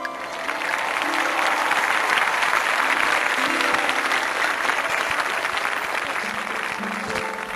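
Applause, swelling up in the first second and easing slightly near the end, over a simple melody of short notes.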